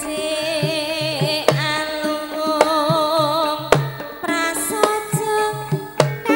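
A woman singing a long, wavering melodic line through a microphone and PA, over Javanese gamelan-style dance music with hand drums striking a regular low pattern about twice a second and sharp clicks in between.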